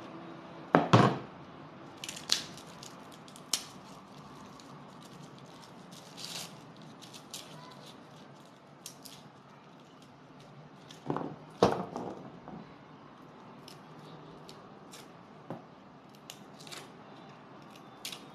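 Shallots being peeled by hand with a small knife: dry, papery skins crackling and tearing in short, scattered clicks. Two louder clusters of knocks come about a second in and again about eleven seconds in.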